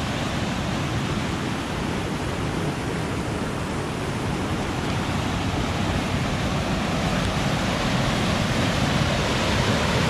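Spring-fed pool outflow pouring over a concrete spillway into churning whitewater: a steady rushing of water that grows gradually louder.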